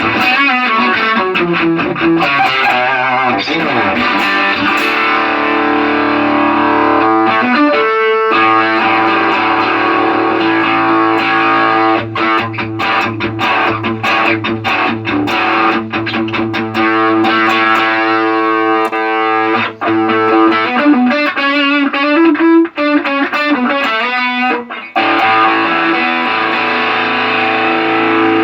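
Electric guitar played through a Line 6 Helix LT multi-effects processor with distortion, sustained chords and quick picked runs, the unit working normally again after cleaning of water damage.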